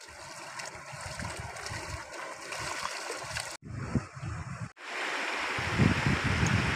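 Shallow river running over stones, with light irregular splashing of water. The sound drops out for about a second midway, then the river's rush returns steadier and louder.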